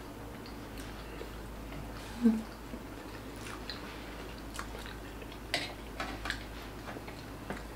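Close-miked chewing of saucy pancit palabok noodles, soft wet mouth sounds, with a brief hummed sound about two seconds in and a few light clicks in the second half.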